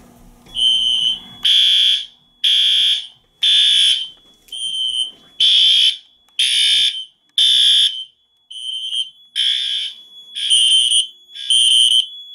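Fire alarm horns sounding a steady repeating pulse, about one loud blast a second. The system has gone into alarm after a smoke detector was tripped with a test magnet.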